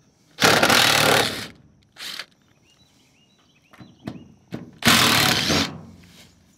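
DeWalt 20-volt cordless impact driver backing screws out of steel siding: two hammering bursts of about a second each, one shortly after the start and one near the end, with a brief burst between them.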